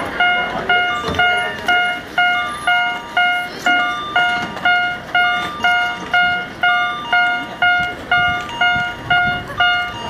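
Miniature railroad crossing signal's warning bell ringing 'kan-kan': an even ding-ding about twice a second, each ring dying away before the next.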